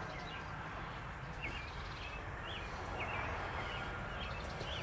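Small birds chirping outdoors: short, high chirps repeating about twice a second, over a low steady rumble.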